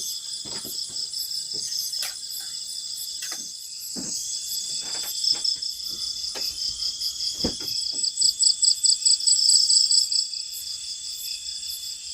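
A chorus of night crickets and other insects trilling steadily and high-pitched, with a fast pulsing trill swelling about eight seconds in. Scattered light clicks and knocks run through it.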